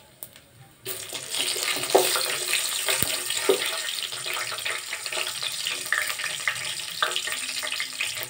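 Whole spices (cloves, cinnamon, shahi jeera, bay leaves) sizzling in hot oil and ghee in a steel pot, the sizzle starting suddenly about a second in and running steadily. A wooden spatula stirs them, knocking against the pot a few times.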